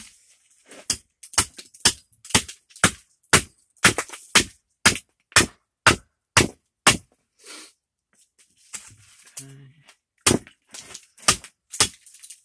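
Carving axe chopping a green-wood spoon blank held upright on a chopping stump: a run of sharp chops about two a second, a pause of a few seconds, then four more chops near the end.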